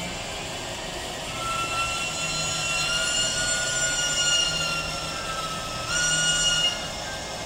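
Locomotive sound from a Roco model of the BLS Ae 6/8 electric locomotive: a high whine with overtones comes in about a second in and holds with a slight rise in pitch. It dips and then jumps back up near six seconds, and stops about seven seconds in, over a low pulsing hum.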